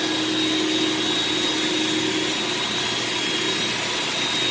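Truck-mounted carpet-extraction machine pulling vacuum through the hose and wand as the wand head is worked over the carpet: a steady rushing of air with a thin, high, steady whistle and a lower hum.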